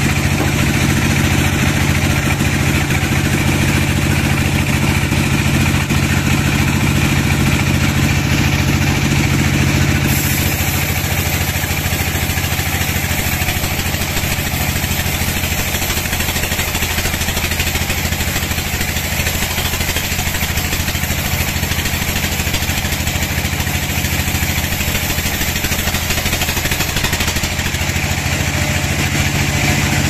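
Engine-driven band sawmill running steadily, a continuous engine hum with a mechanical clatter over it. About ten seconds in the hum shifts and drops a little in level.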